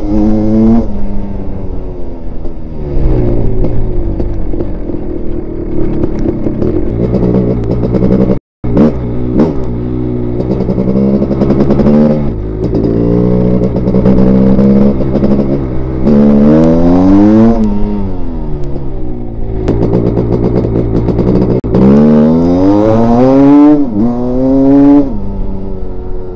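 1986 MStar (Maico) 500 two-stroke single-cylinder dirt bike engine under way, its pitch climbing and falling again and again as the rider accelerates and shifts through the gears. The freshly rebuilt engine is being broken in. The sound drops out completely for a moment about eight seconds in.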